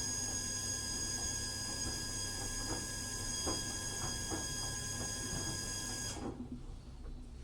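Haier washer-dryer running mid-wash, its drum motor giving a steady hum with a high electronic whine and a few soft knocks as the drum turns. The high whine cuts off abruptly about six seconds in, leaving the low hum.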